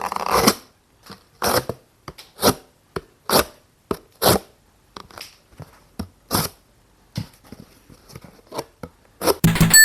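A fixed-blade bushcraft knife slicing through cardboard in a series of short tearing strokes, about one a second. Near the end comes a sharper hit with a brief metallic ring.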